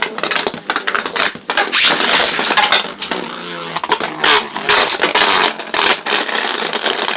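Beyblade Burst spinning tops whirring and clashing in a plastic stadium, with a rapid clatter of knocks and scrapes as they collide.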